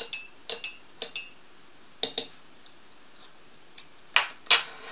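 Metal teaspoon clinking against a glass tea mug while stirring tea, in quick pairs of clinks during the first two seconds. Two louder knocks follow near the end.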